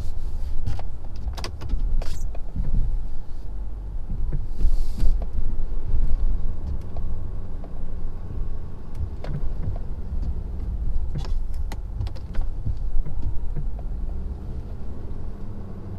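2017 Ford F-250's Power Stroke turbo-diesel V8 running under load while plowing heavy snow with a V-blade, with scattered knocks and clunks and a brief hiss about five seconds in.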